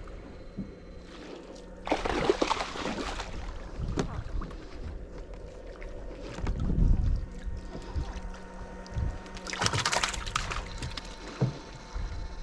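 Water splashing around a small boat, in two bursts of about a second each, with a heavier low thump in between. A steady low hum runs underneath.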